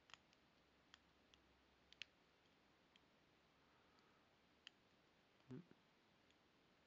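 Faint, scattered clicks of a lock pick working the pins of a Hermex 6-pin padlock, about one a second, as pins are set one at a time. There is one soft low thump about five and a half seconds in.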